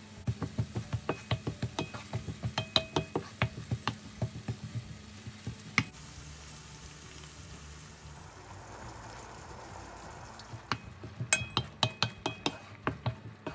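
Wooden spatula knocking and scraping against a nonstick frying pan while vegetables stir-fry in chili oil, several quick knocks a second. A quieter stretch follows as the red sauce base goes into the pan with a soft sizzle, then the stirring knocks return near the end.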